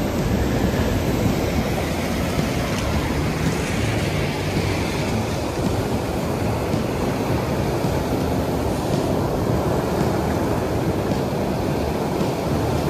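Surf breaking and washing up over a pebble beach: a steady rush of waves.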